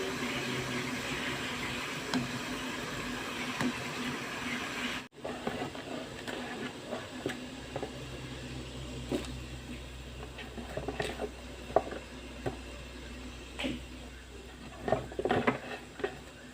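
Water hissing steadily in a kitchen for about five seconds. After a break, scattered clinks and knocks of kitchen utensils and cookware follow over a low steady hum.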